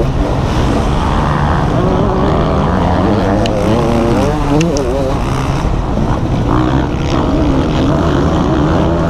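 KTM motocross bike engine at race pace, close to the microphone, revving up and dropping back over and over as the rider works the throttle and shifts gears.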